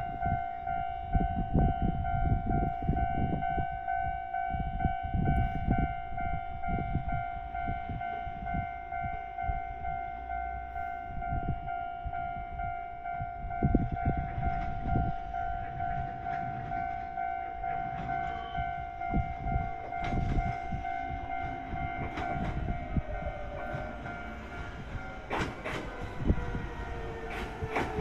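Level crossing warning alarm sounding steadily as a Yoro Railway electric train approaches the station, over a gusty low rumble. The alarm fades out near the end as the arriving train's motors whine downward in pitch while it brakes alongside the platform.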